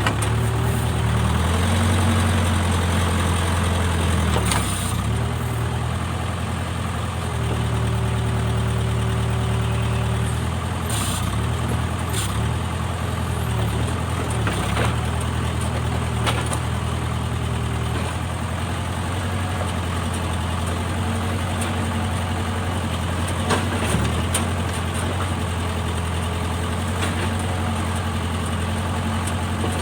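Backhoe loader's diesel engine running steadily, getting louder for a few seconds now and then, with a few short knocks.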